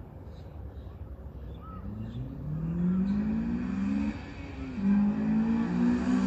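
Honda Civic Type R's K20 four-cylinder with an Invidia Q300 exhaust accelerating hard: the engine note climbs in pitch and gets louder, drops briefly about four seconds in as at a gear change, then pulls again louder.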